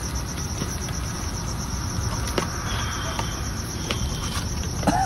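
Crickets chirping in a fast, even pulse over a steady hiss from the lit gas ring and the pan, with a few faint clicks.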